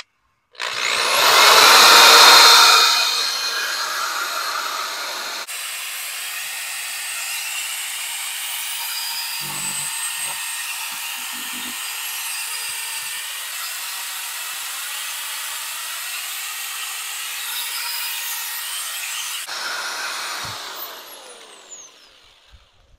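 Black+Decker drill spinning a 3M sanding disc against a plastic headlight lens, wet-sanding it with 500 grit: a steady whirring grind. It starts about half a second in, is loudest for the first couple of seconds, and winds down near the end.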